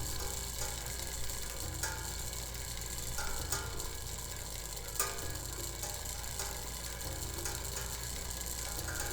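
Clockwork mechanism running while resting on an aluminium cable spool used as a resonator: a fast, steady ratcheting tick of the gear train and escapement, with a sharper click about five seconds in.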